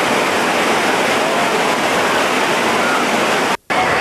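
Steady wash of noise from a crowded outdoor pool: splashing, falling water and many distant voices blending together. The sound drops out briefly about three and a half seconds in, at a cut in the recording.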